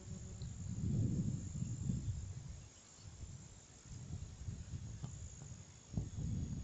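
A low, rough creaking noise from an unidentified animal, swelling and fading, then returning more weakly.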